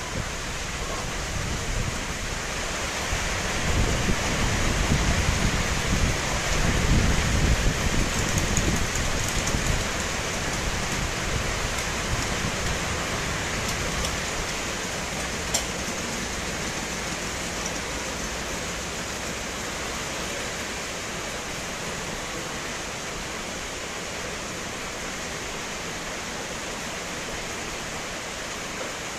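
Heavy, steady tropical rain falling, with a low rumble that swells from about three seconds in and dies away by about ten seconds, and a single sharp tick about halfway through.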